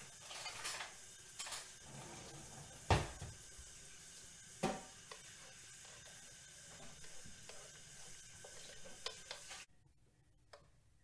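Cutlery clinking and two sharp knocks, then a metal spoon stirring and scraping in an enamelled cast-iron pot of soup. A steady hiss runs underneath and cuts off suddenly near the end.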